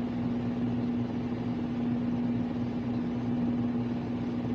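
Steady hum of a running appliance: one constant low tone over an even hiss, unchanging throughout.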